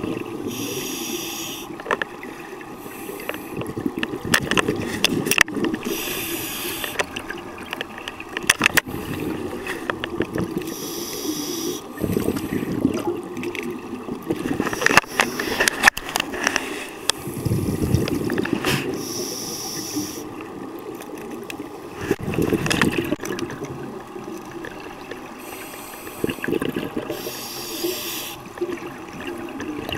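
Scuba diver breathing through a regulator underwater: hissing breaths and gurgling bursts of exhaled bubbles, repeating every few seconds.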